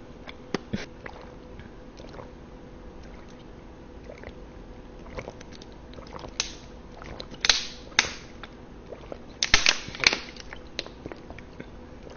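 Close-miked eating sounds: chewing with scattered wet mouth clicks, and a few louder, noisier bites or slurps in the second half.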